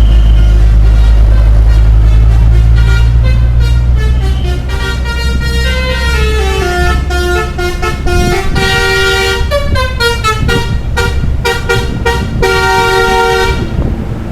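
Bus telolet horn, a set of air horns sounded in sequence to play a tune of stepping pitched notes over the low drone of the bus engine. The notes start a few seconds in, turn into a quick run of short blasts and stop shortly before the end.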